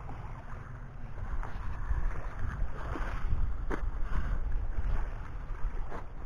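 Wind buffeting the microphone in a low, uneven rumble, with a few short, sharp clicks.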